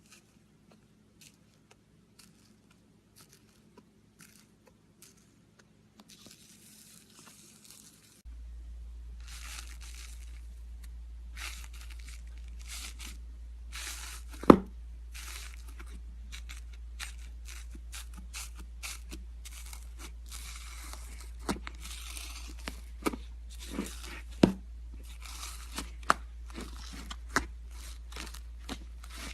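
Slime being squeezed and stretched by hand: soft sticky crackling and clicks, with several sharp pops as air pockets burst. The crackling grows denser after the first quarter.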